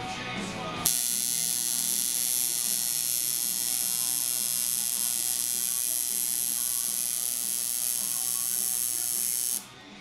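Coil tattoo machine buzzing steadily while needling skin. It starts about a second in and stops shortly before the end.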